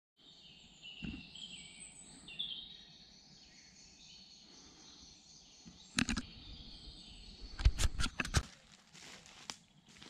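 Woodland birds singing, mostly in the first half. A sharp knock comes about six seconds in, followed about two seconds later by a quick run of four more knocks.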